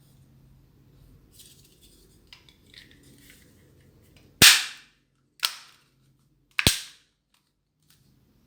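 Three sharp clicks about a second apart, following light handling rustle.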